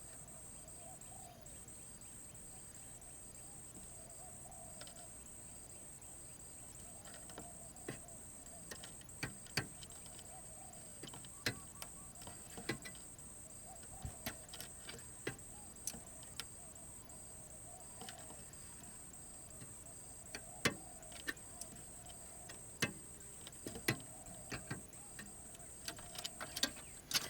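Spotted dove cooing over and over in short, low, wavering phrases. From about a quarter of the way in, sharp clicks and taps come irregularly, the loudest sounds. A steady high insect whine runs underneath.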